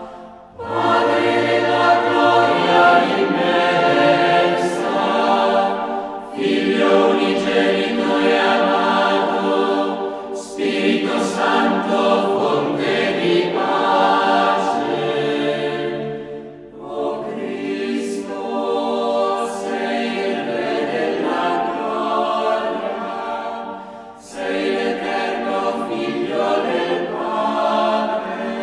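Choir singing slow, sustained phrases, with brief pauses between phrases every few seconds.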